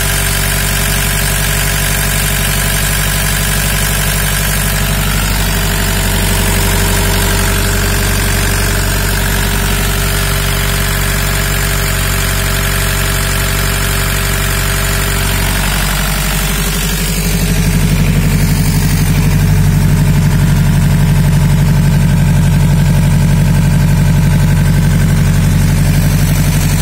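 FAWDE 20 kVA generator set's diesel engine running steadily at constant speed. About two-thirds of the way through the sound gets louder, with a stronger low hum.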